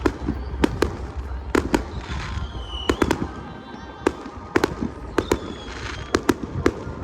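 Fireworks going off in a quick, irregular series of sharp bangs, with now and then a whistling tone that falls slightly in pitch.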